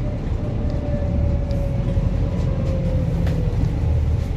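Interior of a Volvo B5TL diesel double-deck bus under way: a steady low engine and road rumble with a faint whine that falls slightly in pitch, and a light knock just after three seconds in.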